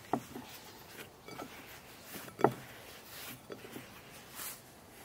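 Soft knocks and rustling as a ball of pizza dough is turned over in a bowl of semolina, with one sharper knock about two and a half seconds in.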